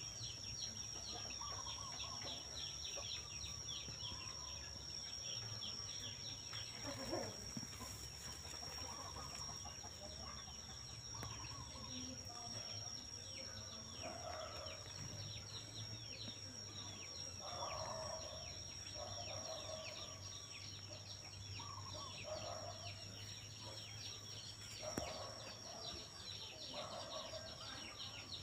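Outdoor animal ambience: short low calls every second or two, over dense rapid high chirping and a steady high-pitched whine.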